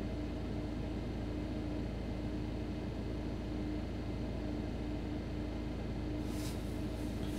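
Steady low rumble with a faint hum and hiss inside a car. A short burst of hiss comes about six seconds in.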